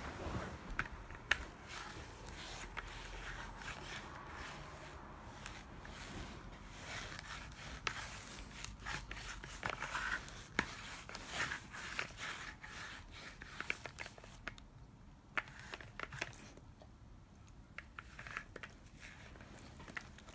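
Sticky lint roller rolled over a dog's coat: an uneven crackling and rasping as the adhesive sheet pulls at the fur, in short strokes with scattered clicks, quieter for a few seconds after the middle.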